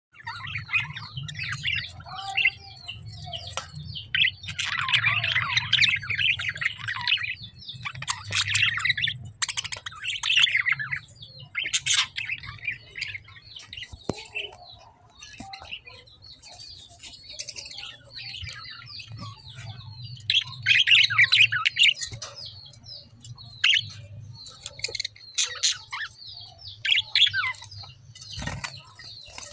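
Caged lovebirds chirping in quick, high bursts that come and go, with a low hum underneath.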